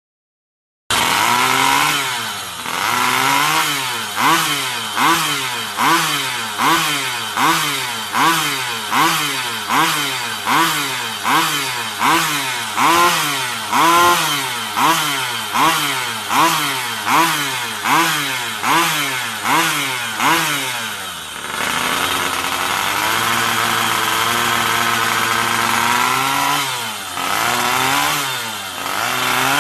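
Mini GP bike's small engine through its aftermarket exhaust, blipped over and over, the pitch shooting up and dropping back about once a second. Partway through it is held at a steady raised speed for several seconds, then the quick blips start again near the end.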